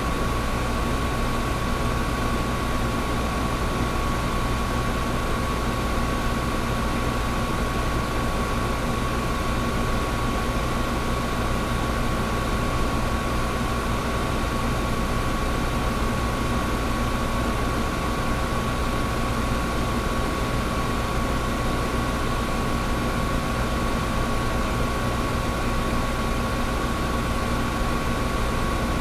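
Old window air conditioner running steadily: a constant rush of fan air over a low hum, with a steady whine on top.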